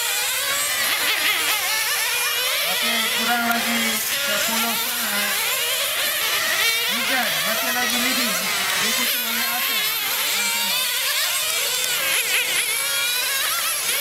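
Several radio-controlled racing cars' motors whining, the pitch rising and falling over and over as the cars accelerate and brake around the track.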